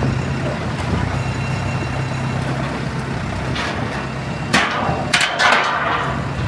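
Diesel engine of heavy demolition machinery running steadily at a low hum, with harsh crashing bursts breaking in about three and a half seconds in and again around five seconds in.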